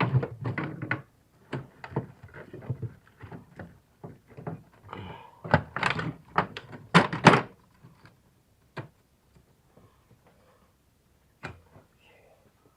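Metal clunks and knocks of hand tools and parts being handled at the engine, a dense run of them with the loudest around six to seven seconds in, then only a few scattered clicks.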